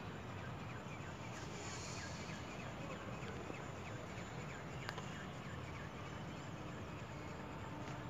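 Steady outdoor background noise with faint high chirps, and a single sharp click about five seconds in.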